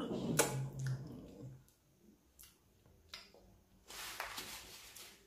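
Mouth noises close to the microphone: a short low hum, a few wet lip-smacking clicks, then a breathy rush of air about four seconds in.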